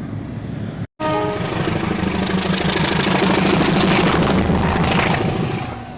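Large diesel bus engine running loud and close, after an abrupt cut about a second in.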